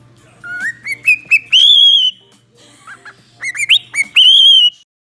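Pet parrot whistling in answer: two runs of short notes stepping upward in pitch, each ending in a long, high held whistle.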